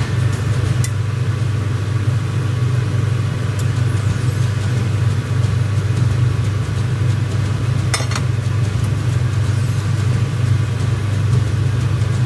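Steady low mechanical hum running evenly throughout, with a couple of sharp metallic clicks from the serving tongs, one about a second in and one later on.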